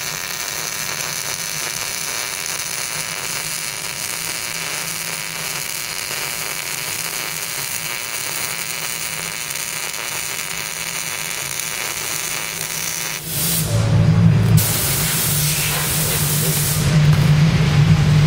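Wire-feed welding arc hissing steadily as a bead is run on steel strip. About 13 seconds in it breaks off, giving way to a low hum and a second, shorter stretch of hiss before the hum returns near the end.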